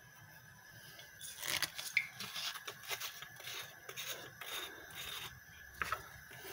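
Off-camera kitchen handling noises while a sauce is being prepared: a run of irregular scraping and rustling starting about a second in, with a sharp click near the end.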